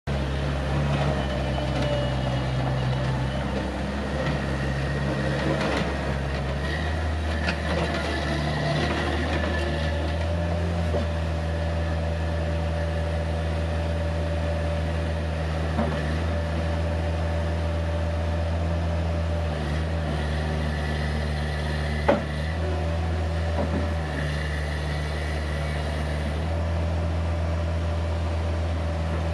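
Caterpillar 216B skid steer loader's Perkins C2.2 four-cylinder diesel running steadily; about seven seconds in the engine speed rises and then holds. A few sharp knocks and clunks from the machine come through, the loudest about 22 seconds in.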